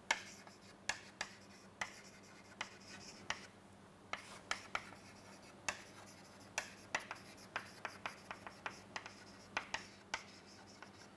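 Chalk writing on a chalkboard: a string of short, irregular taps and scratches as letters are written.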